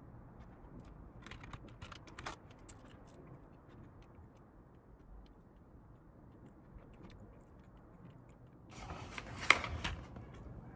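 Quiet office desk sounds over a low steady hum: a few faint clicks and crunches while a snack is eaten, then near the end a short burst of paper rustling with one sharp snap as a glossy brochure is handled.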